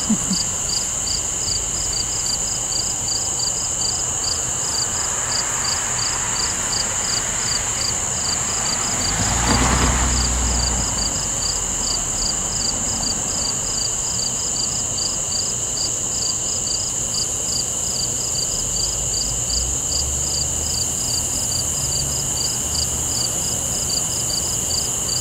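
Crickets chirping steadily, a few chirps a second, over a continuous high insect drone. About ten seconds in, a vehicle passes, swelling and fading with a low rumble.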